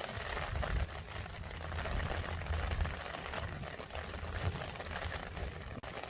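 Rain falling steadily, a dense fine patter, with an uneven low rumble underneath.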